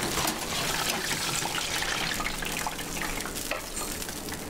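Vegetables, green peppers among them, deep-frying in a wire basket in hot oil: a dense, steady crackling sizzle.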